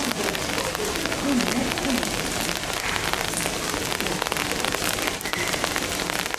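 Steady rain falling on hard surfaces, with a dense scatter of separate drop hits.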